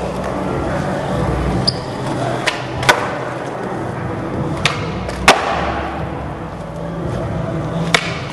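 Skateboard wheels rolling over a smooth concrete floor, broken by several sharp pops and clacks of the board's tail and landings, the loudest about three seconds in and just after five seconds.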